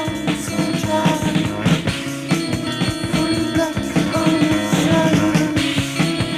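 Psychedelic rock band playing an instrumental passage: drums, bass and guitar with a steady beat.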